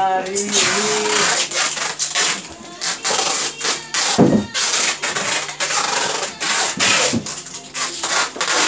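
Styrofoam boxes and packing material being handled: continuous scraping and rubbing with many small knocks, and dull thumps about four and about seven seconds in.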